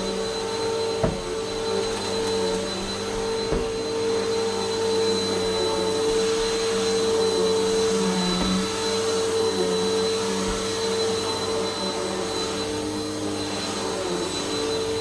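Vacuum cleaner running steadily while carpet is vacuumed, its motor holding an even whine over a broad rushing noise. A couple of short knocks, one about a second in and one a few seconds later, as the head bumps along.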